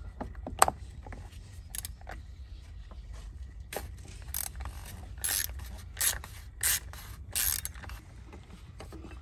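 Ratchet wrench clicking as a 76 mm cap wrench turns the oil filter housing cap loose: a few single clicks at first, then about six short bursts of ratcheting from around three and a half seconds in.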